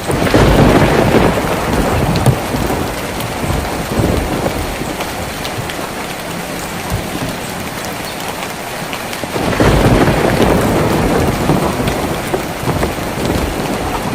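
Steady rain falling on a tin roof, with two rolls of thunder: one as it begins that lasts a few seconds, and another from about nine seconds in that fades slowly.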